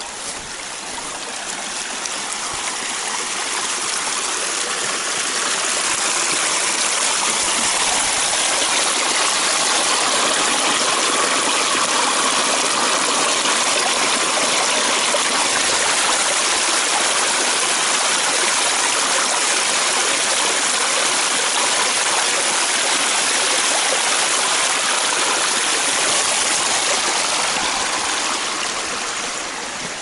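Shallow rocky stream running and splashing over stones, close to the microphone. It grows louder over the first few seconds, holds steady through the middle, and eases near the end.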